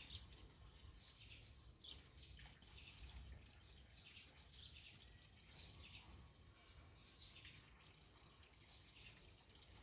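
Near silence: faint outdoor ambience with soft, high chirps repeating every second or so.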